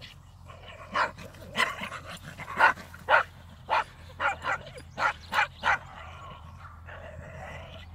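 Dogs barking in play: a quick run of about a dozen sharp barks, roughly two a second, that stops about six seconds in.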